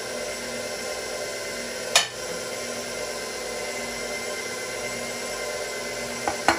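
KitchenAid stand mixer running steadily, its wire whip beating sponge cake batter as flour is added. A single sharp clack about two seconds in, and a couple of quick clicks near the end.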